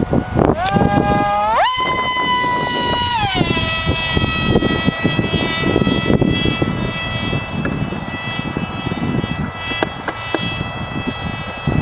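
The small, high-revving engine of a 36-inch model runs with a high-pitched whine. It revs up in two quick steps, holds, then drops back about three seconds in and runs on at a steady lower pitch.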